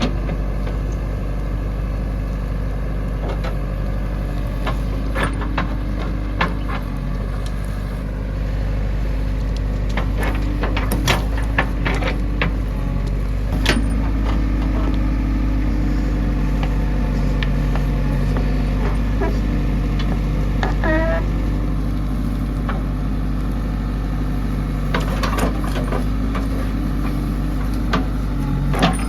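Heavy diesel engine of a backhoe loader running steadily under work, with scattered knocks and clanks. A brief wavering squeak comes about two-thirds of the way through.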